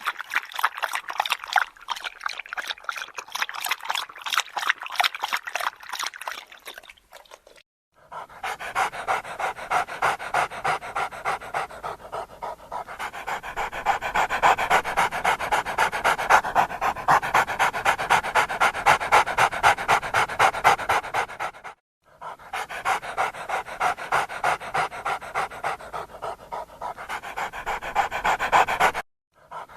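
Dog panting fast and steadily, about three breaths a second, in three stretches broken by brief gaps.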